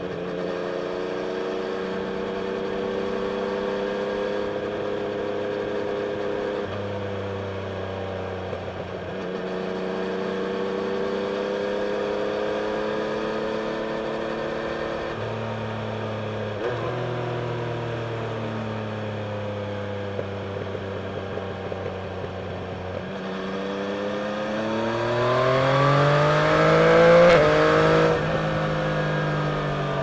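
Yamaha Tracer 900's inline-three engine through a Scorpion aftermarket exhaust, heard while riding: it runs at fairly steady revs with small rises and falls, then about three-quarters of the way through the revs climb hard to a loud peak and ease off again.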